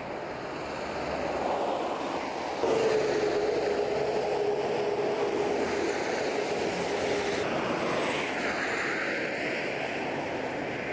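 Motorway traffic noise: a steady rush of passing vehicles. From about two and a half seconds in, an engine hum holds one steady pitch for about five seconds, and a broader swell of a vehicle passing comes near eight seconds.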